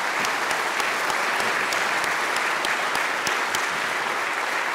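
Audience applauding, a dense clapping of many hands.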